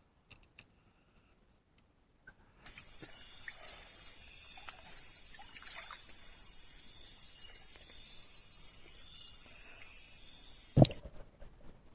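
Steady high-pitched chorus of night insects such as crickets, starting abruptly about two and a half seconds in and cutting off suddenly near the end with a loud knock.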